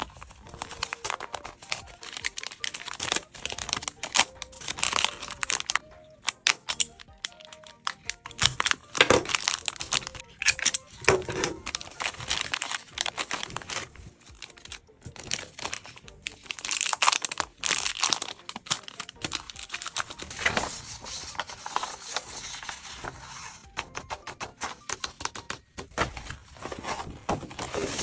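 Clear plastic cellophane bag crinkling in irregular bursts as hands handle it, slipping a paper squishy inside and sealing it with a paper sticker.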